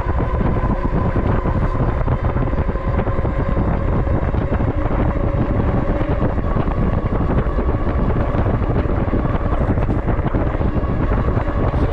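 Wind buffeting an action camera's microphone while riding a 750-watt electric bike, with a steady whine from the bike's motor and fat tyres running on tarmac underneath.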